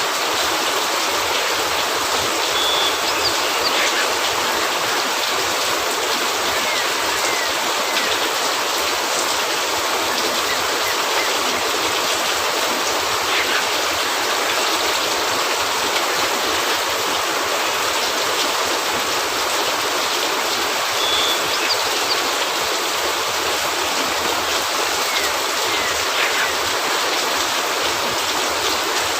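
Steady rain falling, an even, continuous hiss, with a few faint ticks and pops scattered through it.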